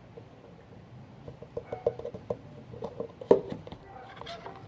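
Slime being mixed with Tide laundry detergent as the activator: irregular wet, sticky squelches and clicks that start about a second in, the loudest a little past three seconds.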